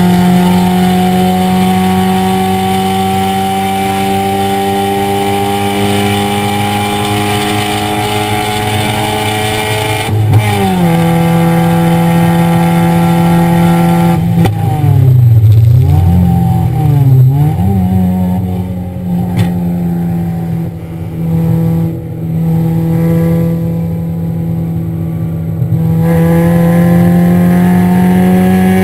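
Car engine under hard acceleration on a racing lap, heard from inside the cabin: the revs climb, drop at an upshift about ten seconds in and climb again. Around the middle the revs dip and rise twice in quick succession as the car slows from over 100 mph for a turn, then run steadier at part throttle before climbing again near the end.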